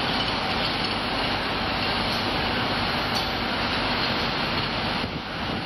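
Steady hum of heavy city street traffic, an even wash of engine and tyre noise with no distinct events.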